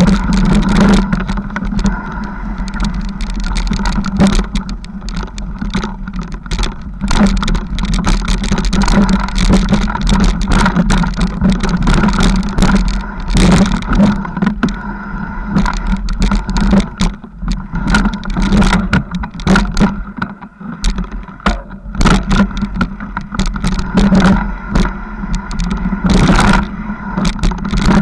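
Mountain bike riding over a rough, leaf-covered forest trail, heard through a camera clamped to the handlebars: a steady rumble with frequent, uneven knocks and rattles as the bike and mount are jolted over bumps.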